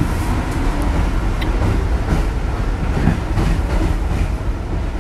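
A New York City 6 line subway car running on the track, heard from inside the car: a steady rumble of wheels on rail with a few light clacks.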